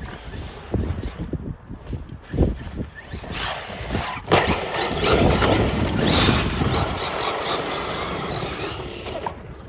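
Losi DBXL-E 2.0 electric RC buggy driving on dirt: its motor whines and squeals under throttle while the tyres churn loose ground, loudest from about three and a half seconds in. There is a single knock about two and a half seconds in.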